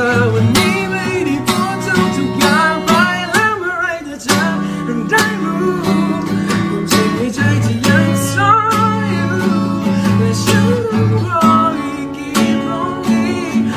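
A man singing live while strumming an acoustic guitar, his voice gliding between held notes over a steady strum.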